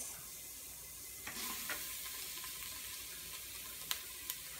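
Diced garlic and green onions sizzling in hot oil in an Instant Pot's steel inner pot on sauté mode. The sizzle swells about a second in as the green onions are tipped in, and two light clicks come near the end.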